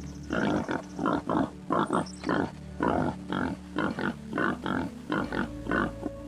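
An animal grunting in a rapid series of short calls, about three a second, over quiet background music.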